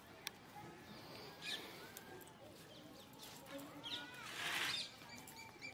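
Quiet outdoor ambience: faint scattered bird calls and distant voices, with a brief burst of noise about four and a half seconds in.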